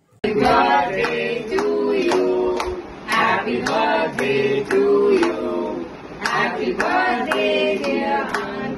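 A small group of men and women singing together, clapping along on a steady beat; it starts abruptly just after the opening.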